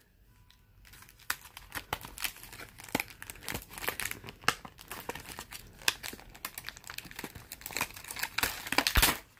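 Clear plastic packaging of a trading-card deck crinkling and crackling in irregular bursts as hands handle it and take out the cards. It starts about a second in, with the loudest crackle near the end.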